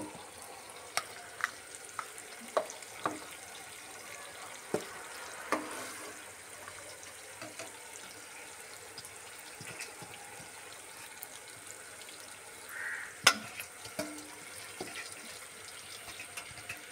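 Soaked rice being tipped from a steel bowl into a pot of boiling water and stirred in with a metal ladle: scattered sharp clinks and taps of metal on metal, the loudest about thirteen seconds in, over the steady hiss of the bubbling pot.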